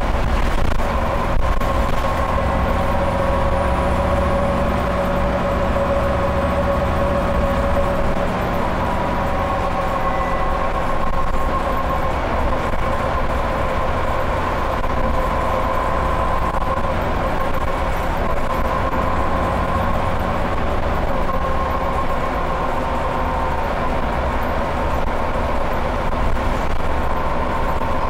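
Scania OmniCity single-deck bus driving at a steady speed, heard from inside the rear saloon. The engine and driveline run with a steady whine over the low rumble of the road and tyres.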